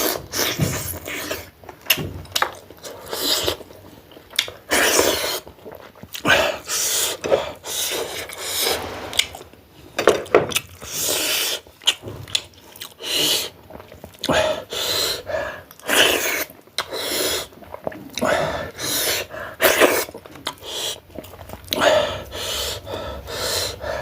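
Close-up eating sounds: chewing and mouth noises broken by many short, sharp sniffs and panting breaths, a reaction to the heat of hot chilli.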